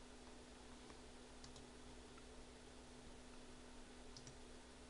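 Near silence: a faint steady hum with a few faint computer keyboard clicks.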